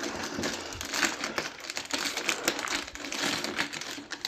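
Gift wrapping crinkling and crumpling as it is handled and pulled at, in a dense run of irregular crackles.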